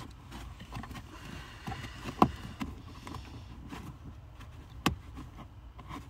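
Hands working under a vehicle dashboard: light rustling and small knocks against plastic trim and wiring, with two sharp clicks, about two seconds in and again about five seconds in.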